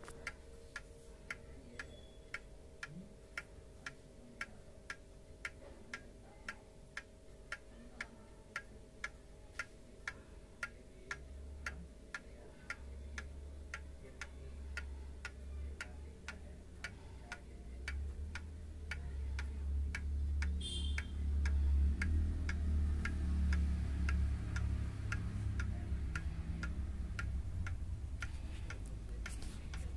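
Seiko 30-day striking calendar wall clock (Seikosha movement) ticking steadily, about two ticks a second. From about a third of the way in, a low rumble swells under the ticks and is loudest near the end.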